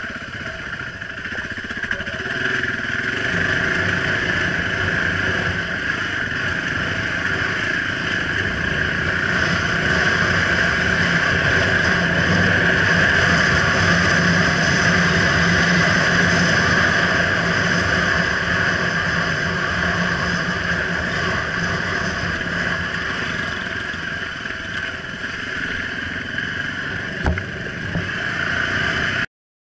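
Off-road vehicle driving along a rough dirt track: steady engine and road noise that swells in the middle, with a single sharp knock near the end. The sound cuts out abruptly just before the end.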